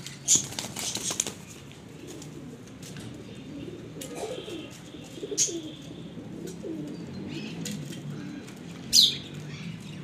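Domestic pigeons cooing repeatedly while they feed. There is a loud flurry of wing flaps about half a second in, and a sharp short sound near the end.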